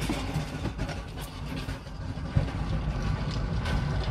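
Steady low mechanical rumble in the background, with one sharp knock a little over two seconds in.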